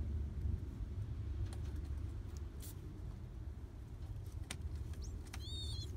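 A newly hatched pigeon squab gives one short, thin, high peep near the end, over a steady low rumble and a few faint clicks.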